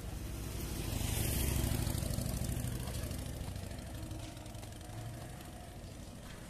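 A motor vehicle passes close by on the street. Its engine hum and a hiss grow to a peak about a second and a half in, then fade over the following seconds.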